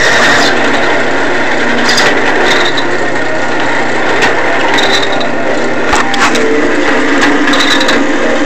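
Rockwell drill press running at its slowest speed while a drill bit bores a half-inch hole through aluminium: a steady mechanical whir of motor and cutting, with scattered short clicks.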